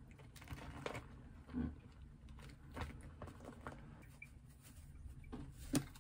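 Faint pattering and a handful of light taps as food is plated, with a dried-parsley shaker shaken over a plate of pasta.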